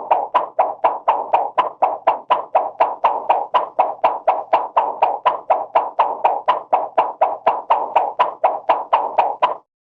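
Cartoon sound effect: a rapid, even series of knocking taps, about four a second, that stops near the end.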